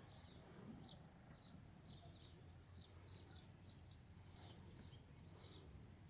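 Faint, quick bird chirps repeating two or three times a second over a low steady hum.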